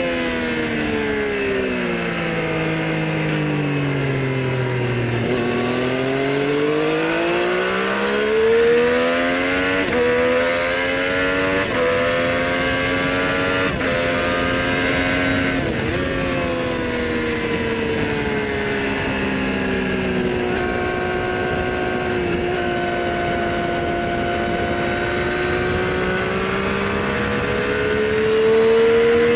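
Triumph Street Triple's inline three-cylinder engine and exhaust under way, heard from under the seat. The engine note drops as the bike slows, then climbs again with several short breaks for gear changes. It holds a fairly steady note for a while and rises once more near the end.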